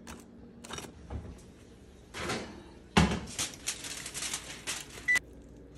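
Metal kitchen tongs clicking, then aluminium foil crinkling and crackling as it is lifted off a glass baking dish, from about three seconds in until it cuts off suddenly near the end.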